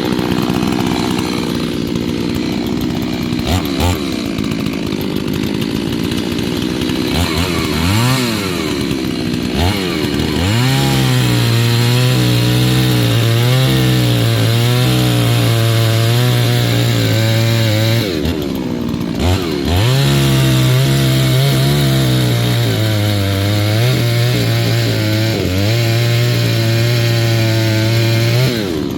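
New Holzfforma two-stroke chainsaw being run in, cutting wood. The engine runs at a lower speed at first, then goes up to full throttle about ten seconds in. Its pitch wavers up and down as the revs bog under the cut and recover. It lets off briefly about two-thirds of the way through, then opens up again.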